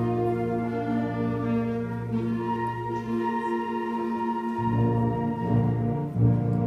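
School concert band of brass and woodwinds playing long held chords. The low bass notes drop out for about a second past the middle, then come back in, with a brief loud accent near the end.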